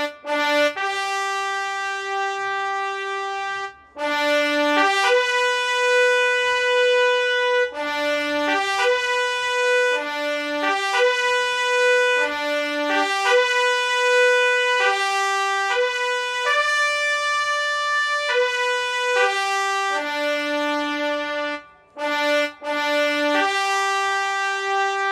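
Solo trumpet playing a slow melody of long held notes with short breaks between them, dropping out briefly twice.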